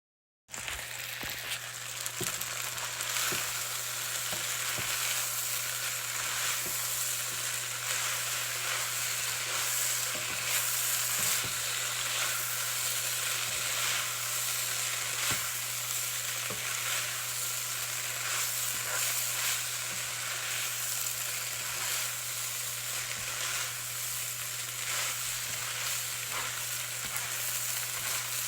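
Food frying in a pan on a stove, a steady sizzle, while it is stirred, the utensil making frequent short scrapes and clicks against the pan. It starts about half a second in.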